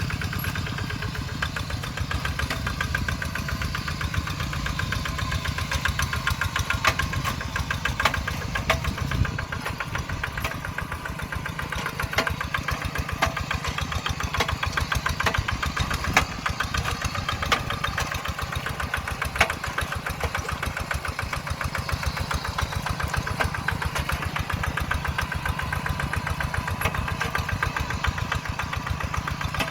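Kubota RD85DI-2s single-cylinder diesel engine of a Quick Zeva G3000 two-wheel hand tractor running steadily with a fast, even firing beat, with a few sharp knocks standing out now and then.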